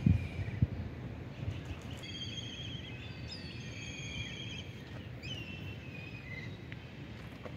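Birds calling over steady outdoor background noise: a string of high whistled calls, some sliding down in pitch, from about two seconds in. A few dull knocks at the very start are the loudest sounds.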